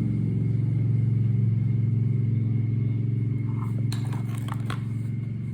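Electric grinder (gerinda) running with a steady, low, rough 'snoring' growl, the noise that marks the grinder as faulty. A few light clicks come about four seconds in.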